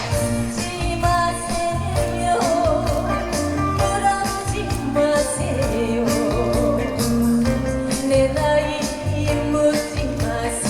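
Trot song performed live: a woman singing with vibrato over backing music with a steady beat.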